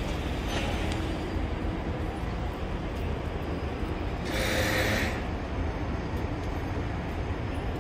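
Steady rumble of city street traffic around a bus and streetcar terminal, with buses and a streetcar moving nearby. A brief hiss stands out about four and a half seconds in.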